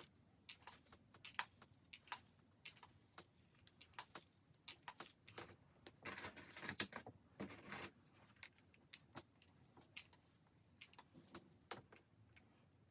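Faint handling noise from curling a wig: scattered small clicks and taps, with a denser stretch of rustling and clatter about halfway through.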